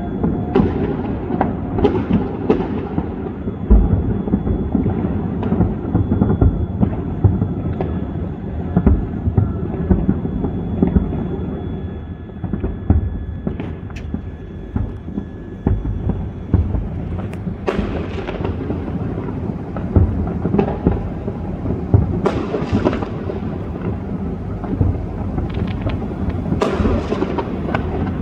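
Many New Year fireworks exploding at once, their booms overlapping into a continuous thunder-like rumble, with sharper crackling bursts several times in the second half.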